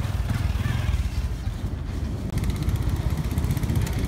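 Engine running close by with a low, steady, pulsing rumble, joined a little past halfway by a fast, fine rattle that stops near the end.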